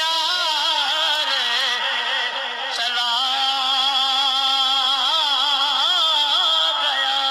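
A solo voice singing a devotional Urdu song, its melody winding up and down in ornamented turns, settling into a long held note near the end.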